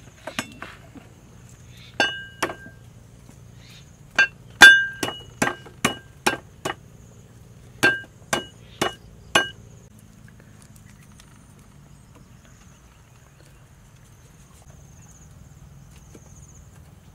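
Knife chopping on a wooden chopping board: about a dozen sharp chops in uneven groups, some with a short metallic ring from the blade. The chopping stops a little past halfway through.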